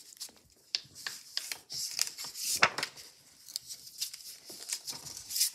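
Sheet of paper being folded by hand and pressed flat into creases: irregular dry rustling and scraping, with a sharper crackle about two and a half seconds in.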